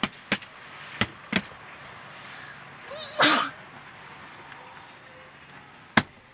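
A child's pretend sneeze: a short rising voiced sound, then one loud noisy burst about three seconds in. A few sharp clicks come before it and one near the end.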